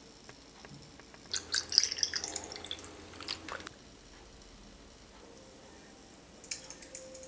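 Ice and liquid crackling, clicking and dripping in a glass of iced tea for about two seconds. Soft music with light ticking begins near the end.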